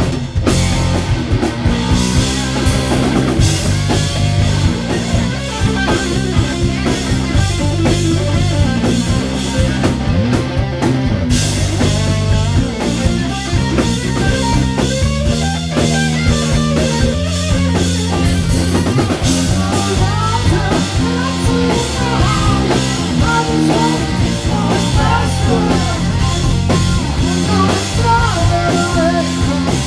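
Live rock band playing loudly: Telecaster-style electric guitar over a drum kit.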